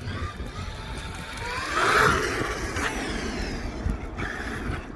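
Traxxas X-Maxx RC truck's brushless electric motor whining as the truck drives past. The pitch rises as it approaches, is loudest about two seconds in, and falls away as it moves off.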